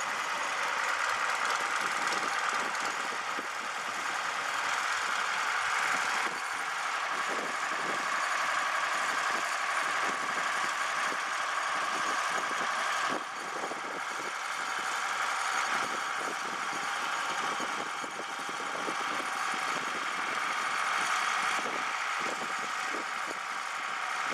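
Farm tractor's diesel engine running steadily with a knocking clatter.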